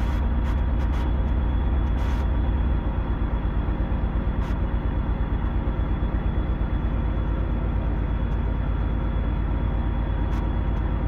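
Detroit Diesel Series 60 12.7-litre inline-six diesel running at idle, heard from inside the cab while an injector diagnostic test runs. About three seconds in its deep rumble drops away and the engine runs unevenly, pulsing for a few seconds, then settles into a steady run.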